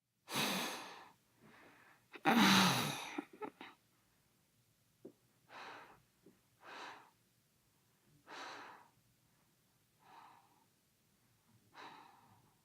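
A boy breathing in and out audibly, about eight separate breaths with pauses between them. The loudest, about two seconds in, is voiced, like a grunt, and is followed by a few small mouth clicks.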